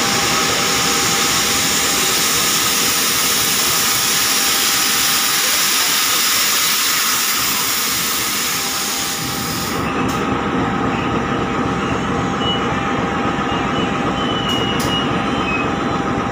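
Compressed air hissing loudly from the air brake line as a CC201 diesel locomotive is uncoupled from its carriages. The hiss cuts off suddenly about ten seconds in, leaving the locomotive's engine running.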